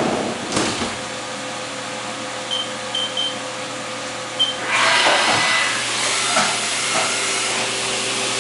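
Haas VM3 CNC mill: its doors knock shut, a few short high beeps sound, then about five seconds in the flood coolant and spindle start and coolant hisses against the closed doors as the test cut in aluminum begins.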